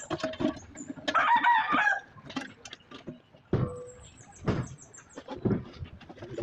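A rooster crows once, starting about a second in. Metal clinks follow, then three heavy knocks about a second apart.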